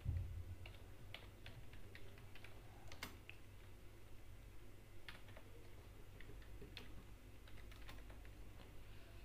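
Computer keyboard being typed on: faint, irregularly spaced keystrokes, over a steady low hum.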